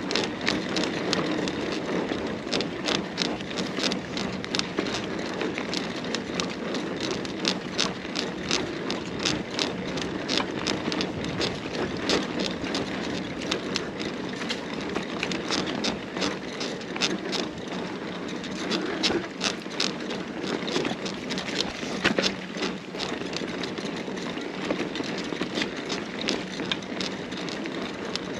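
Carrera Hellcat mountain bike riding over a rough off-road trail: a steady rumble of tyres on the ground with constant irregular rattling clicks and knocks from the bike, and one harder jolt about three-quarters of the way through.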